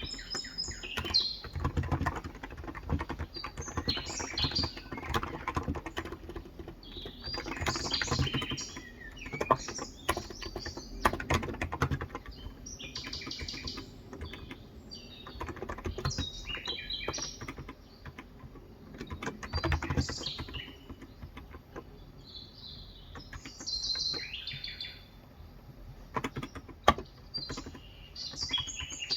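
Typing on a Cox Endeavor electrocapacitive (topre-style) tenkeyless keyboard with 35 g switches: runs of soft key clicks with short pauses. Small birds chirp outside now and then.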